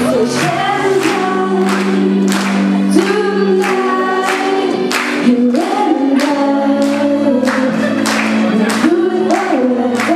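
A song sung by several voices together over a steady beat.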